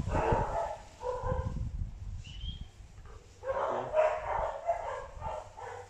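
A dog barking in several short bouts.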